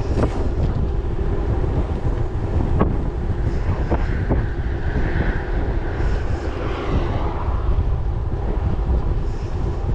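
Wind buffeting the microphone of a handlebar-mounted camera while riding along a road: a steady, heavy low rumble of wind and road noise, with a few light clicks.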